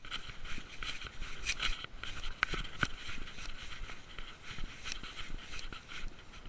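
Handling noise from a small camera worn by a cat as it moves: irregular scraping and rubbing with light clicks.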